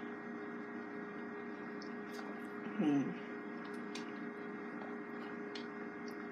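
Steady electrical hum with a few faint clicks, as a person sips a drink through a straw. About three seconds in, a short voiced 'mm' falls in pitch.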